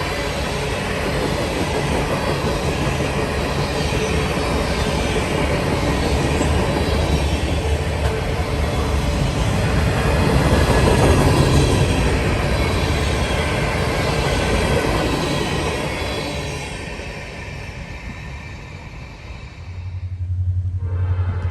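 Freight train's cars rolling past, steel wheels running on the rails in a steady dense rush that fades away over the last few seconds. Near the end a steady low hum takes over.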